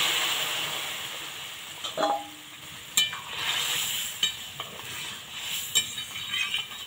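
Curry with its broth poured into hot oil tempered with bay leaves and dried chillies, giving a loud sizzle and hiss that dies down over the first couple of seconds. A metal spatula then stirs it, knocking against the metal wok several times.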